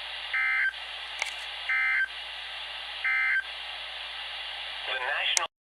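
NOAA Weather Radio EAS end-of-message signal: three short bursts of SAME digital data warble, each about a third of a second long and about a second and a half apart, over steady radio hiss. The audio cuts off suddenly near the end.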